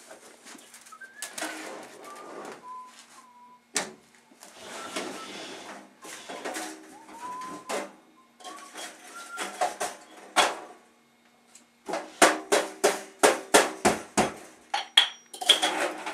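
Household objects being handled and rummaged on top of a chest freezer: rustling and clattering with a few short squeaks. Near the end comes a rapid run of knocks, about three or four a second for a few seconds.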